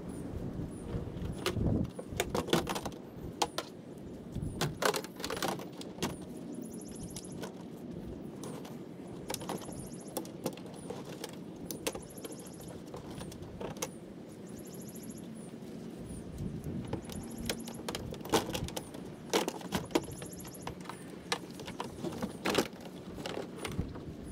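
Irregular clicks and knocks of the rigid plastic sections of a three-piece modular paddle board and its strap being handled, stacked and clipped together.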